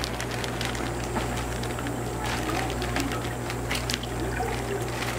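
Water pouring and trickling from a plastic fish-shipping bag into a bucket, with a few crackles of the plastic bag being handled, over a steady low hum.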